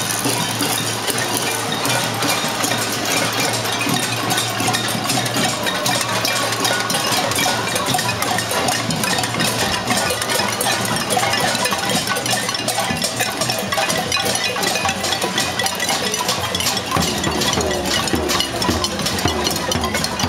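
Many cooking pots and saucepans beaten with spoons by a marching crowd: a dense, continuous clanging of metal on metal, the noise of a casseroles protest.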